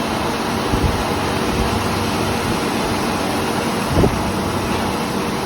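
Metal lathe running, a steady mechanical noise with a low hum, and a brief knock about four seconds in.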